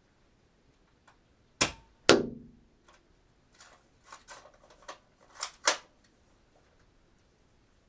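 Dart gun being fired and cocked: two sharp loud shots about half a second apart, the second with a short ringing tail. Then a run of small mechanical clicks and two quick sharp clacks.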